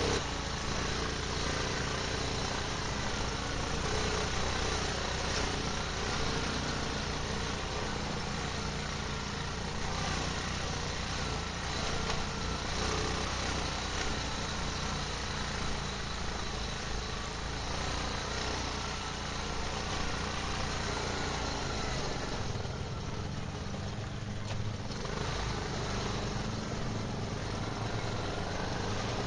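ATV (quad bike) engine running steadily on a dirt trail, heard from on board the rider's own machine.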